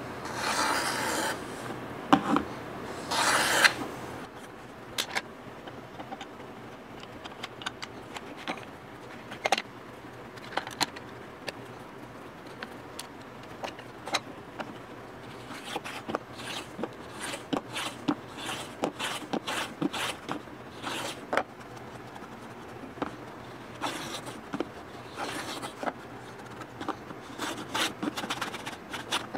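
Hand tool working wood: two longer scraping strokes near the start, then many light taps and short scrapes.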